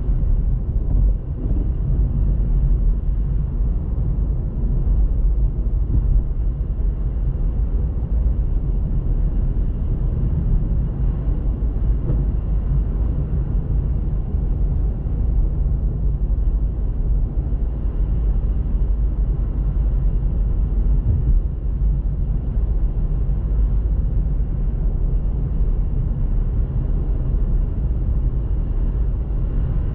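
Steady low rumble of a car being driven: engine and tyre noise running evenly without a break.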